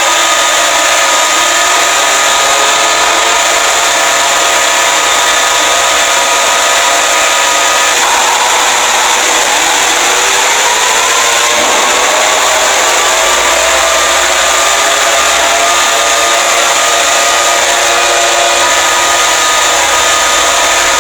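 Emergency Alert System-style alarm audio: loud, constant static with several held tones layered over it. The held tones drop out about eight seconds in, slowly sliding tones take their place for a while, and the held tones come back near the end.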